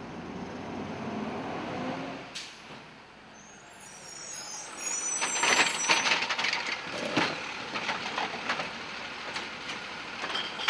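Automated side-loader garbage truck (DaDee Scorpion ASL): the truck's engine runs steadily at first. Then, from about five seconds in, its automated arm grabs and lifts a wheeled trash cart with hissing and a run of clanks and knocks.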